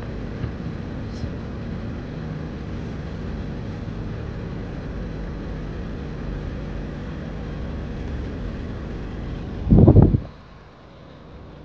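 Steady low rumble of a car driving slowly, heard from inside the cabin. About ten seconds in, a brief loud low rumble of handling noise as the phone is swung, after which it goes quieter.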